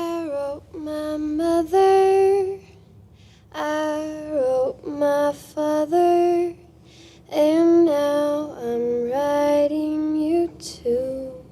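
A woman singing alone without accompaniment: a slow melody in three phrases with held notes and short pauses between them.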